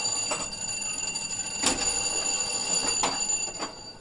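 A steady, high electronic warning tone sounds while the switch rails and gear mechanism of a railway turnout exhibit clunk into place, with about four metallic knocks, the loudest about halfway through. The tone cuts off shortly before the end.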